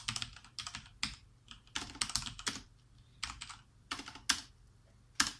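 Typing on a Thermaltake TT Premium Level 20 RGB mechanical keyboard with Cherry MX Speed Silver linear switches: irregular key clacks in small clusters, thinning out in the second half, with one last loud stroke near the end.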